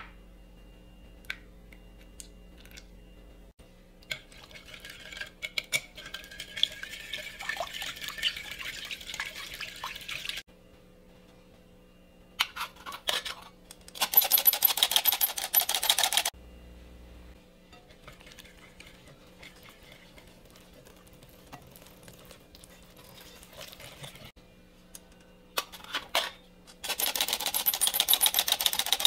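A utensil beating fast against a mixing bowl: a softer stretch starting about four seconds in, then two louder bursts of about two seconds, each cutting off sharply.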